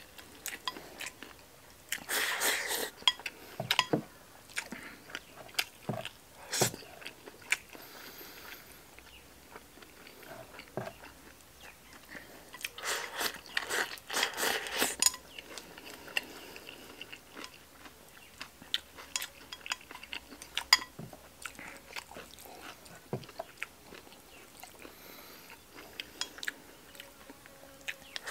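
A person eating rice and stir-fried mushrooms with chopsticks: chewing and biting, with sharp clicks of chopsticks against a porcelain bowl. Twice, a few seconds in and about halfway through, a longer clatter of scraping and chewing as rice is shovelled from the bowl held to the mouth.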